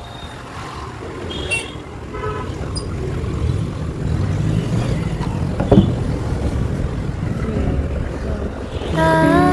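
Motorbike ride through busy town traffic: steady engine and road rumble that grows louder, with a few short horn toots from surrounding vehicles. Music comes in near the end.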